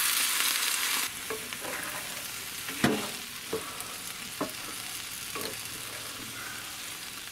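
Water added to browned ground beef in a hot cast iron pan, sizzling loudly and then dropping about a second in to a quieter steady sizzle. A spatula scrapes and knocks against the pan several times as the mixture is stirred.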